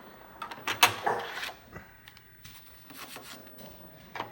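A few scattered clicks and knocks with some rubbing in between; the loudest knock comes just under a second in.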